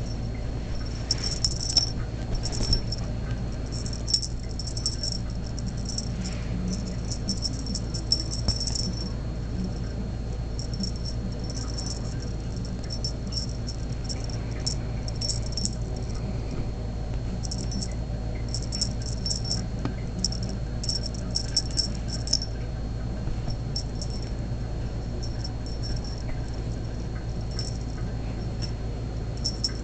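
Small cat toy mice rattling in irregular bursts as a cat bats, pins and mouths them, with quiet gaps between the bouts of play.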